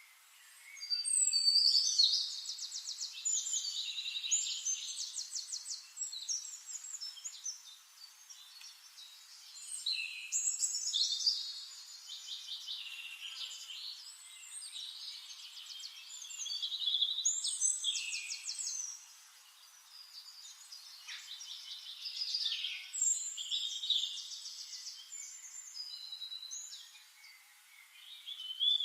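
Songbird singing in a forest: long, high, rapid trilled song phrases, about five of them, each a few seconds long with short pauses between.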